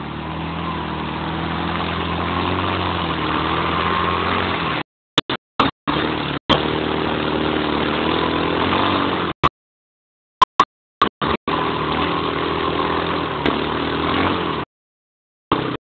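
ATV engine running under load as the quad churns through muddy water, its note rising and dipping a little, with wheels splashing and throwing mud. The sound cuts out to dead silence several times, for about a second at a time, around the middle and near the end.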